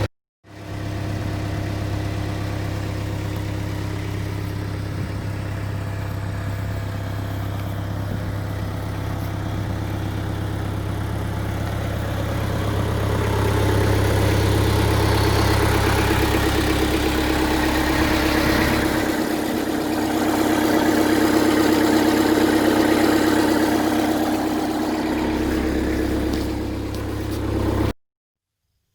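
Skid steer engine running steadily, then picking up revs and load about halfway in, with a steady higher whine added; it cuts off suddenly near the end.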